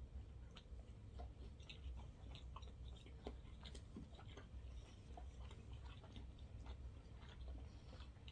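Faint chewing of sushi, with scattered small wet mouth clicks and ticks.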